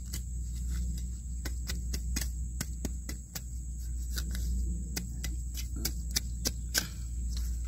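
Short, sharp scraping chops of a narrow hand weeding blade striking soil and grass roots, irregular at a few strokes a second, over a steady low hum; the blade is blunt.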